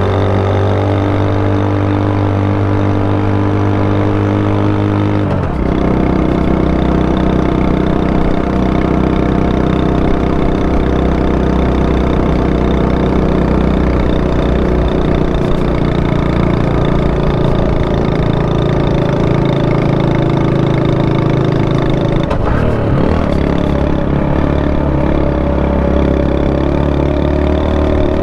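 Honda Super Cub 90's small single-cylinder four-stroke engine running steadily, its note changing abruptly twice, about five seconds in and again a little over twenty seconds in.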